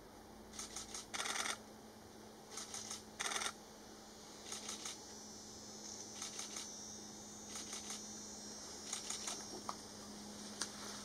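Camera shutters firing in rapid-fire bursts of several clicks each, about eight bursts one to two seconds apart; the loudest two come in the first few seconds.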